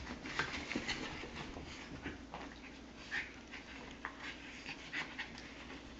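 A basenji puppy and a Shih Tzu–Yorkie mix play-fighting, with several short, high-pitched whines and yips scattered through.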